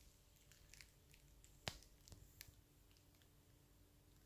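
Near silence: faint room tone with a few soft clicks, the clearest about a second and a half in.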